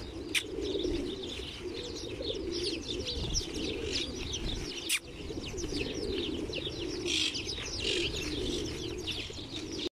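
A flock of house sparrows chirping constantly, with wings fluttering as they fly in to the hand, over the low, steady cooing of pigeons.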